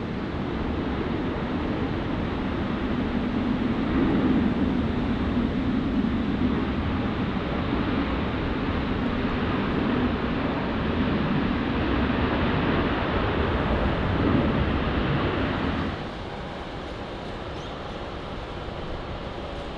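Boeing 737-800's CFM56 jet engines running loud as it rolls along a wet runway, with the hiss of spray thrown up from the water. About three-quarters of the way through, the sound drops suddenly to a quieter, steady rumble.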